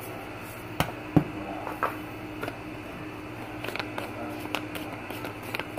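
Spice containers being handled and set down: two sharp knocks about a second in, then scattered lighter clicks and ticks as the next spice container is opened, over a low steady hum.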